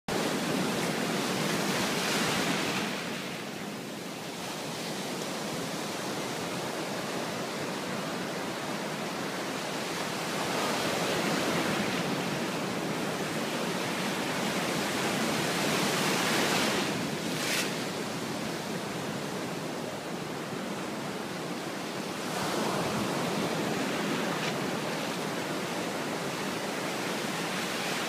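Ocean surf: waves breaking and foamy whitewater rushing up and draining back over the sand, swelling and ebbing every several seconds. A single brief sharp click comes about two-thirds of the way through.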